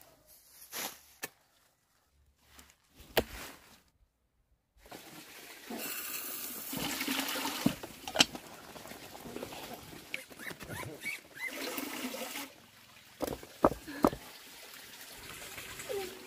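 A few sharp snips of pruning shears cutting plant stems, then a steady watery hiss and bubbling from a cast-iron pot cooking over a wood fire, with a few sharp cracks from the fire near the end.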